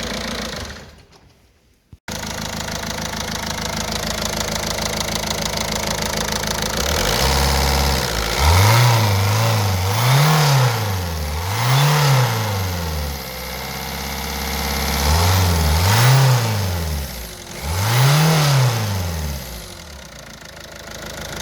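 Citroën Berlingo's 1.6 HDi DV6 16-valve diesel, just reassembled after a valvetrain repair, running at idle and then blipped five times, each rev rising and falling back to idle. The sound cuts out briefly about a second in.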